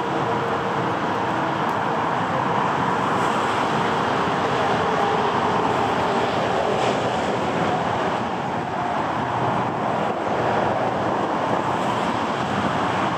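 Airbus A330-900's Rolls-Royce Trent 7000 jet engines running at low power as the airliner taxis, a steady rushing engine noise.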